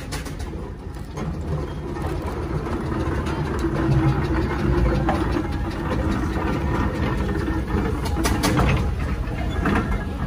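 Steam roller passing close by: a heavy low rumble that builds over the first few seconds, with a few sharp knocks about eight seconds in.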